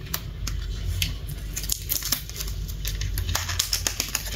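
Cardboard chocolate box being handled and worked open at the top: a quick run of small clicks and crackles of paperboard, over a low steady hum.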